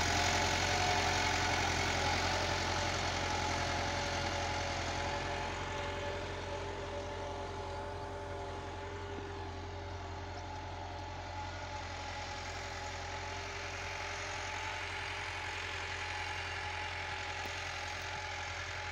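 Massey Ferguson 375 tractor's diesel engine running steadily under load as it pulls a laser land leveler through the soil. It grows fainter over the first several seconds as the tractor moves away.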